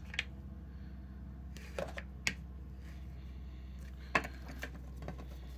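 A plastic toy dough roller tapping and clicking against a hard tabletop as it is rolled over a slab of Play-Doh. There are a few separate light knocks, with a steady low hum underneath.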